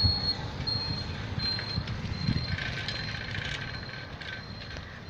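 Ride-along street noise from a vehicle moving down a road, with a low rumble of wind and travel noise on the microphone. A faint high-pitched squeak repeats in short, even dashes, and a brief cluster of higher chirps comes about the middle.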